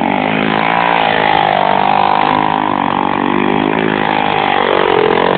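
Honda XR 250 Tornado's single-cylinder four-stroke engine running hard, its pitch rising and falling as the motorcycle is spun in donuts.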